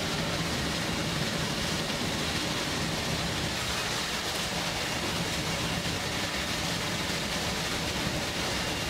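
Steady running noise in the cab of an SNCF 141 R Mikado steam locomotive at speed, an even rushing din without breaks.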